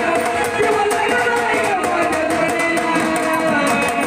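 Marathi devotional folk music playing continuously: a melody line that slides between held notes over quick, bright percussion ticks.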